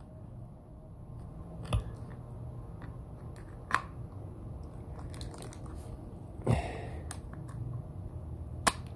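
Hard plastic of a battery pack's casing and steel pliers clicking and cracking as the pack is pried apart by hand. There are four sharp clicks spread over several seconds; the third, about two-thirds through, is the loudest and comes with a short crunching scrape.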